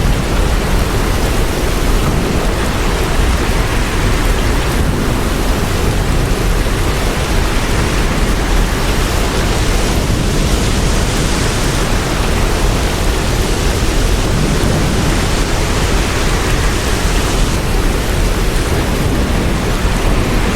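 Hurricane wind and heavy rain, a loud, steady rushing noise with a heavy low rumble. The hiss grows brighter for several seconds about halfway through.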